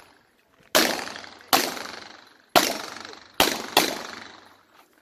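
Five Glock pistol shots at uneven intervals, the last two close together, each trailing off in a ringing echo.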